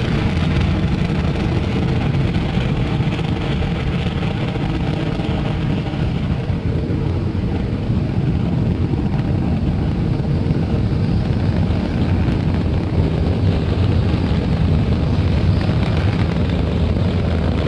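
Steady deep rumble of a Falcon 9 rocket's nine Merlin 1D first-stage engines in powered climb, with a higher hiss on top that eases off about six seconds in.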